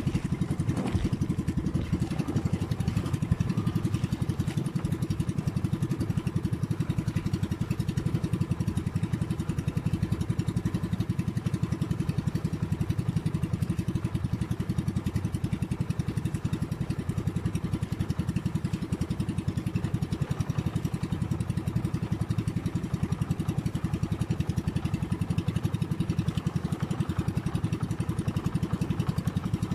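Outrigger fishing boat's (bangka's) engine running steadily with a fast, even pulse.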